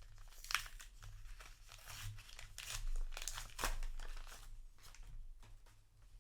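Paper trading-card booster pack being torn open and crinkled by hand, a quick run of rips and rustles that thins to a few light clicks near the end.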